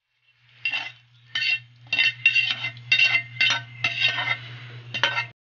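A metal utensil scraping and knocking against a metal pan as sautéed vegetables are scraped out into a cooking pot, about eight strokes, with a steady low hum underneath.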